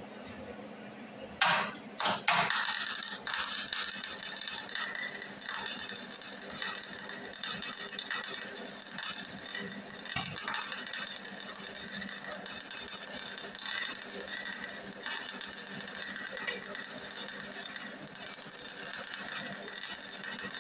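Hobart Handler 120 flux-core wire-feed welder striking an arc with a few sharp pops about a second and a half in, then a steady crackling, sputtering arc as a bead is run at a low amperage setting. The arc keeps going without the machine cutting out, so at this low setting the breaker does not trip.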